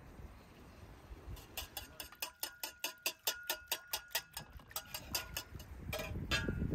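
Wire whisk beating eggs in an enamel bowl, the metal tines clicking against the bowl about five times a second with a faint ringing. The strokes stop about five seconds in, and a couple of louder knocks follow near the end.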